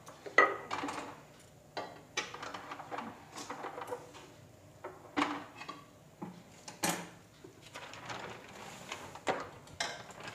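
Thin polythene sheet crinkling and rustling as it is handled and folded over a lump of warm sesame-jaggery chikki mixture, with a few sharp knocks of kitchen utensils on the counter.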